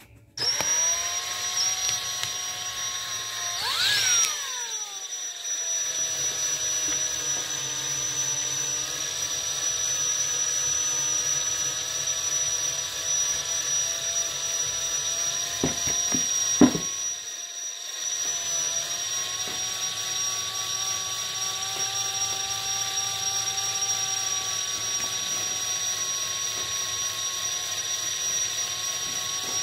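Small electric motor whirring steadily at speed, starting suddenly about half a second in and rising in pitch as it spins up. Its pitch sags and recovers about four seconds in, and a couple of sharp clicks come just past the middle.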